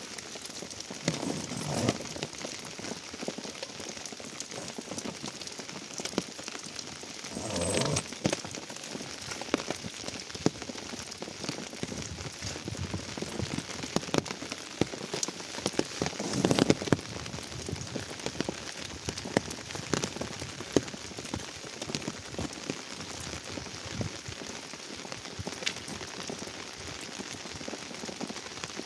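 Rain pattering steadily on tent canvas and plastic sheeting, with many small drop clicks. Three louder rustles break through, about one and a half seconds in, about eight seconds in and near the middle.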